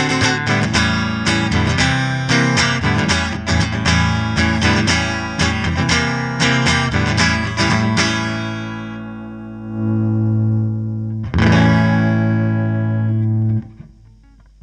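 Electric guitar, a Fender Stratocaster, played through a Line 6 Helix amp-and-cabinet model with a light overdrive. A run of fast picked notes rings out and fades, the sound swells back, then a chord struck about 11 seconds in is held and cut off shortly before the end.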